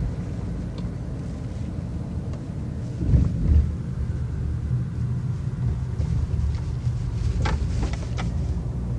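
Car cabin noise while driving: a steady low rumble of engine and road, with a louder bump about three seconds in and a few short clicks near the end.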